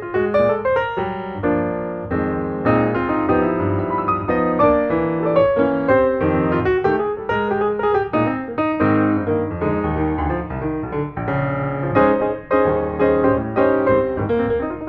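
Background piano music, a busy run of notes played at a steady, fairly loud level.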